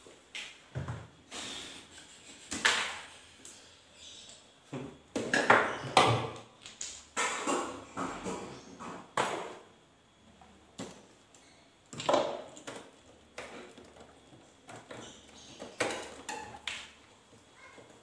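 Irregular knocks, clicks and scrapes of plastic and metal parts being handled inside the freezer compartment of an LG two-door refrigerator under repair.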